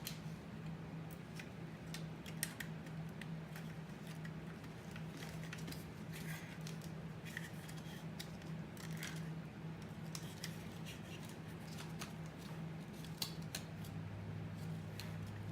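Scattered small clicks and taps of plastic and metal parts of a car navigation head unit being handled and worked at while a stuck ribbon cable is freed, over a steady low hum.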